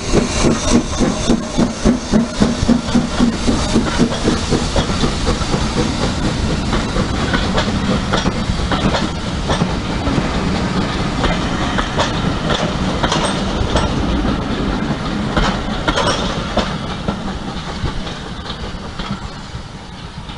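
A Hunslet Austerity 0-6-0 saddle-tank steam locomotive passes with its exhaust beating a few times a second. Then its train of coaches goes by, the wheels clicking over the rail joints. The sound fades as the train draws away near the end.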